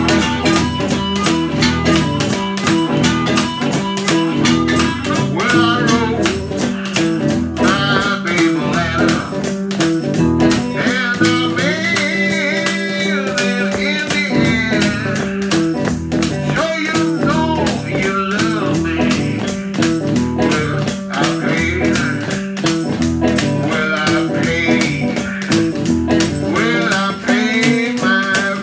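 A blues band playing an instrumental passage. Guitar and washboard keep a steady beat under a wavering harmonica lead.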